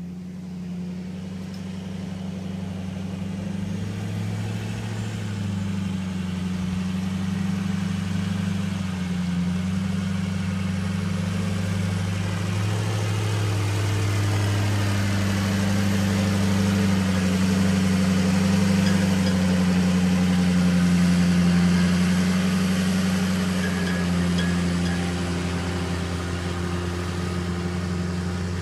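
Engine of a small Ford concrete mixer truck running steadily at low speed as it crawls along a gravel access path. The hum builds slowly, loudest about two-thirds of the way through, then eases a little as the truck passes.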